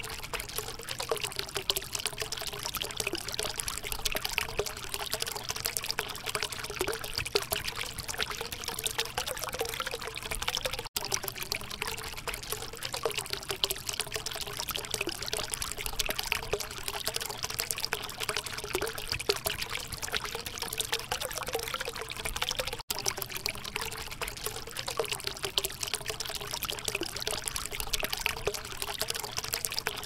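Thin stream of water from a small cement tabletop fountain falling into its shallow basin, splashing and trickling steadily. The sound breaks off for an instant twice.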